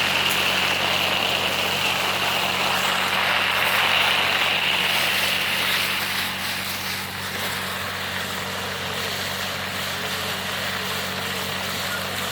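Tractor-driven hazelnut harvesting machine running steadily: a low engine drone under a loud rushing noise, with a high whine that fades about six seconds in, after which the whole is a little quieter.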